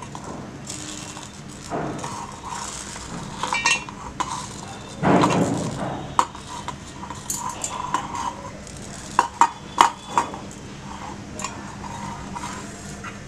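Handfuls of coconut pieces, nuts and whole spices tipped off steel plates into a stainless-steel mixer-grinder jar: dry pieces rattling in, with light clinks of steel plate against steel jar. A longer slide of pouring about five seconds in, and a few sharper clinks near ten seconds.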